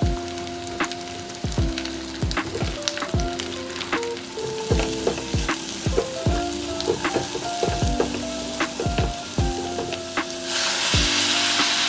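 Food frying in a pan with scattered crackles, the sizzle turning loud and steady about ten seconds in, over background music with a steady beat.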